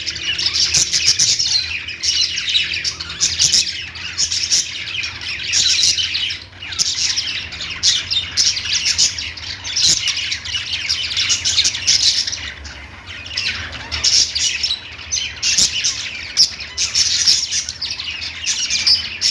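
Several small pet parrots chattering and chirping together in a dense, continuous warble with occasional squawks, easing briefly a third of the way in and again past the middle.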